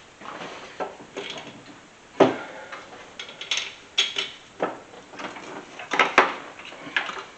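Metal clanks, knocks and rattles as an A/C compressor on its mounting bracket is worked loose and lifted out of an engine bay. There is one sharp knock about two seconds in, and a pair of louder clanks near six seconds.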